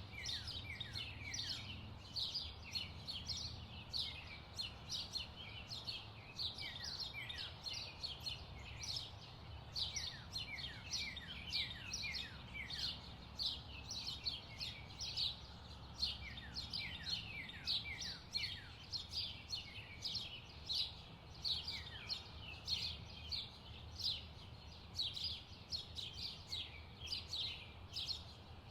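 Birds chirping continuously: many short chirps, often falling in pitch, come thick and fast over a steady low background rumble.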